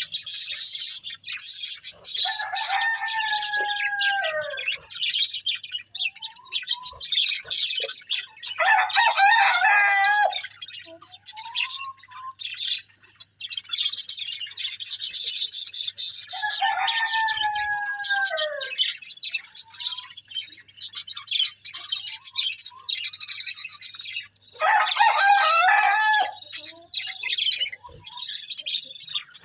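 Budgerigars chirping and chattering without pause, in rapid high twitters and clicks. Twice a longer, lower call falls in pitch over a couple of seconds, and twice a louder burst of dense warbling chatter rises above the rest.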